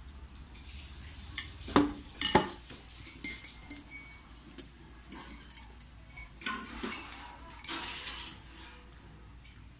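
Spoon and dishes clinking. Two sharp knocks come about two seconds in as a spoon and plate are set down, then a spoon clinks and scrapes in a ceramic coffee mug, stirring, a few seconds later.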